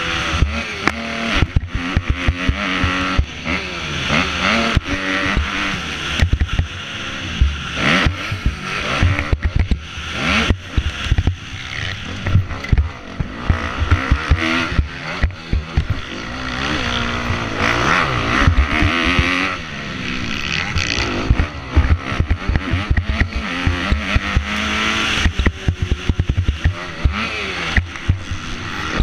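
Kawasaki KX250F motocross bike's four-stroke single-cylinder engine revving hard at racing speed, its pitch rising and falling again and again as the throttle opens and closes, heard from a helmet-mounted camera, with frequent knocks and thumps from the bike hitting the track's ruts and bumps.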